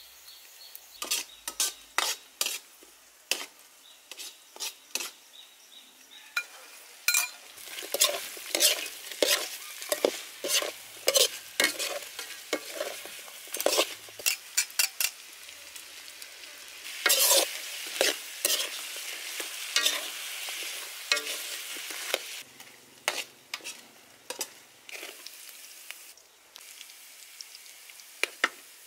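Prawns with chopped garlic and chili frying in hot oil in a wok, sizzling, while a metal perforated ladle stirs them with quick clicks and scrapes against the pan. The sizzle is strongest through the middle and thins out toward the end.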